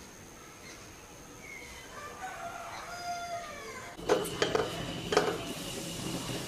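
A rooster crows faintly in the background about two seconds in, one drawn-out call that rises and then falls. From about four seconds in, a metal spoon clinks sharply a few times against a stainless steel cooking pot.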